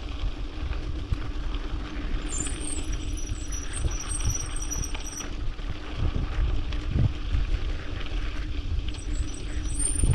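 Mountain bike rolling fast down a rough dirt and gravel track: tyre rumble and rattling over stones, with wind buffeting the body-mounted microphone. A thin high-pitched whine comes in about two seconds in for about three seconds, and again near the end.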